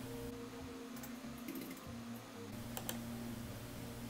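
A few faint computer keyboard keystrokes and clicks, a cluster about a second in and two more near three seconds, over a low steady hum.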